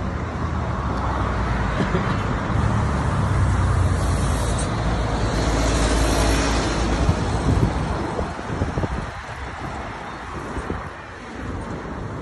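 Road traffic on a busy city street: engines and tyres making a steady rumble, with one vehicle passing close about halfway through, after which the noise eases off.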